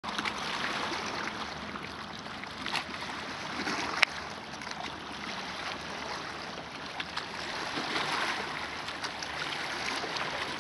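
Small lake waves lapping and washing against a stony shore: a steady wash of water with a few light splashes and clicks.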